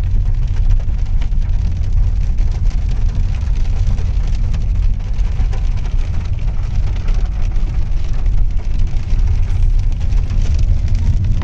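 Rain hitting a car's windscreen and body, heard from inside the moving car over a steady low rumble of engine and road noise.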